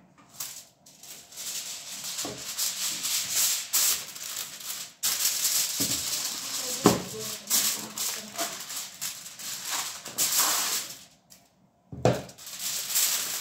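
Aluminium foil crinkling and rustling as a sheet is pulled off the roll and pressed down over a metal baking tray, with a few light knocks. It stops briefly near the end, then starts again.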